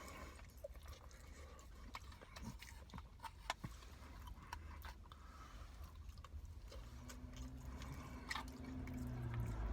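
Faint eating sounds: soft chewing of chicken biryani with small scattered clicks of mouth and utensil. A low hum rises over the last few seconds.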